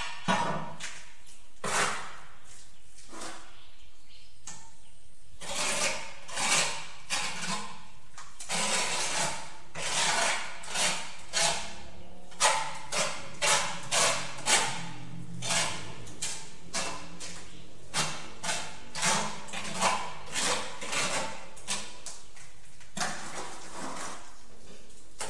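Steel trowel scraping and working tile mortar: a run of short scrapes and knocks, about one or two a second, with a few longer scraping strokes.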